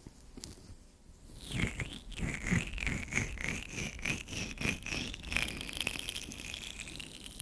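Oiled hands rubbing and kneading the ears of a binaural ear-shaped microphone, close up. A quick, irregular run of slippery rubbing strokes starts about a second in and eases into softer, steadier rubbing near the end.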